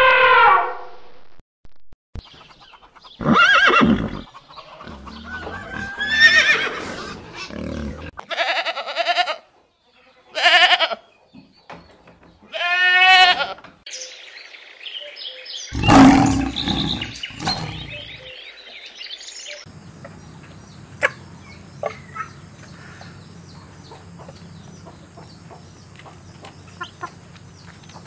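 An African elephant's trumpet call ends about half a second in, followed by a string of separate loud animal calls, one with a fast wavering pitch and a deeper, heavier one near the middle. In the last third, chickens peck at a feeder: scattered sharp clicks over a steady low background.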